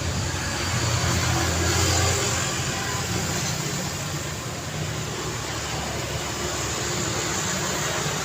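City street traffic: car engines and tyre noise in a steady wash, with one vehicle passing close and loudest about a second or two in.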